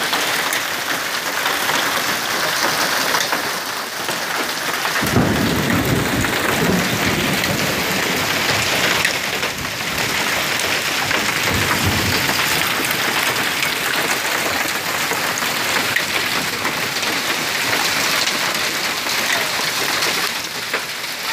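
Hail and heavy rain pelting pavement and parked vehicles in a dense, steady hiss. A low rumble sets in suddenly about five seconds in and fades over several seconds.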